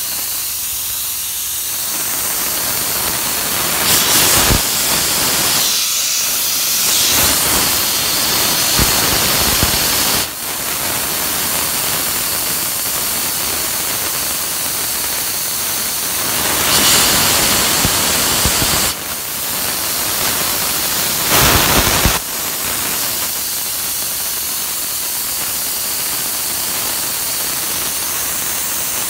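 Steady hiss of propane vapour escaping from the open vent on a 40 lb cylinder being filled from a 500 gallon tank, with a few short, louder surges. Gas, not liquid, is still coming out, so the cylinder is not yet full, and the filler thinks a lot of air is still trapped in it.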